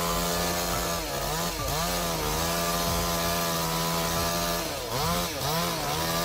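Chainsaw running at high revs with a steady whine; the pitch sags and comes back up twice, about a second in and again near the end.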